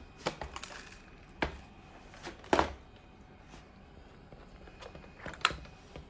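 Scattered clicks and knocks of a plastic robot vacuum being handled as it is turned over and its mop pads are taken off, the loudest about two and a half seconds in and another near the end.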